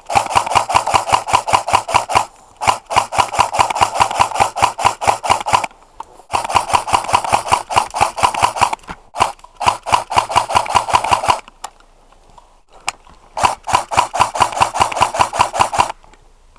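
Airsoft electric gun, a G&G M14 EBR Short, firing long full-auto bursts: a rapid, even rattle of shots from the gearbox cycling, in about five bursts of two to three seconds each with short pauses between, and a longer pause past the middle.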